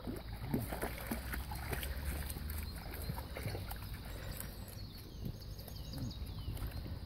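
Several dogs wading and splashing in shallow pond water, with a run of irregular splashes as their legs churn the water at the edge.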